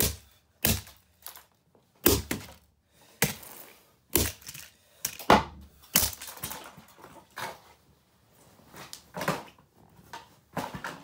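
Sony TCM-20DV cassette recorder's plastic case being smashed with repeated blows: about ten sharp cracking impacts, roughly one a second at an uneven pace.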